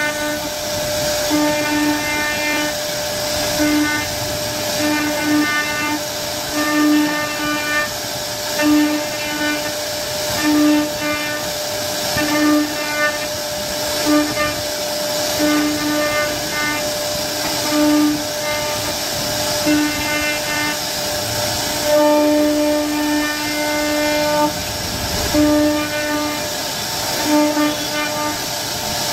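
CNC router carving a wooden door panel: the spindle whines steadily over the noise of the bit cutting wood, while the axis motors whine at a fixed lower pitch in short on-and-off spells as the head moves.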